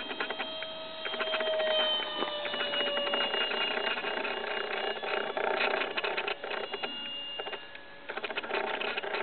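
Electric ducted fan of a radio-controlled Albatros jet model whining in flight; its pitch drops slightly as it passes about two seconds in. A dense crackle runs over it.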